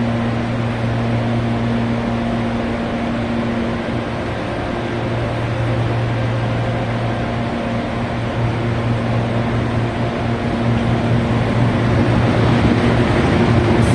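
CPTM electric commuter train approaching along the track and starting to pass close by, with a steady low electric hum under the running noise, which grows louder over the last few seconds.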